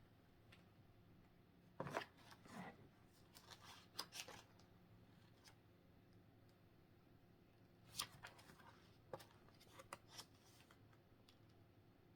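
Faint rustling and rubbing of paper as a card-game player's guide booklet is handled and its pages turned, in short bursts about two seconds in, around four seconds, and again around eight to ten seconds.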